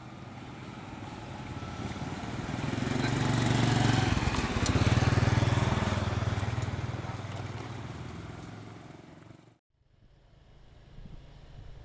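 A motor vehicle's engine passing close by, growing louder for about four seconds and then fading away; the sound cuts off abruptly near the end, and fainter road noise follows.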